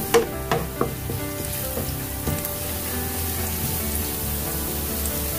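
Minced garlic sizzling in hot oil in a non-stick frying pan, being fried until it turns golden brown. A few sharp taps of a wooden spatula on the pan come in the first second as it is stirred.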